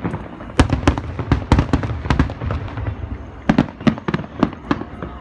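Fireworks going off: a quick irregular run of sharp cracks and bangs, a brief lull about three seconds in, then a few more reports before they thin out near the end.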